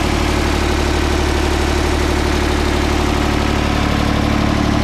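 Ford 4600 tractor's three-cylinder engine idling steadily.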